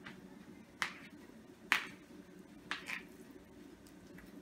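A spoon stirring partly melted mozzarella and cream cheese in a paper bowl, giving four short, sharp clicks about a second apart.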